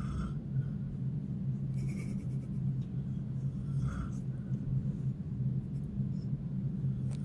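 A sleeping woman snoring, a steady low rumble with louder breaths near the start and about four seconds in.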